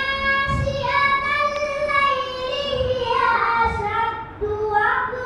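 A girl reciting the Quran in melodic chant into a microphone, holding long, wavering, ornamented notes, with a short breath about four seconds in.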